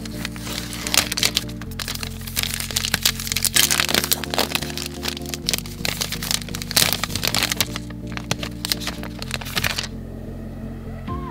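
Foil and paper wrapper of a chocolate bar crinkling and crackling as it is torn and peeled open, stopping about ten seconds in. Background music with steady low tones plays throughout.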